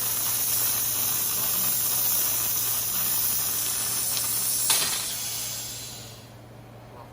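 A steady loud hiss that fades away about five to six seconds in, with a single sharp click shortly before it fades.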